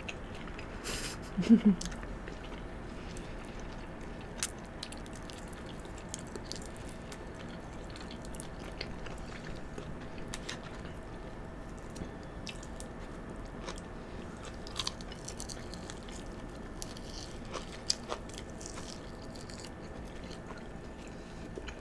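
Two people chewing and biting into deep-fried Chinese takeout and chow mein, with scattered crisp bites and mouth clicks and a short hummed 'mm' about a second and a half in.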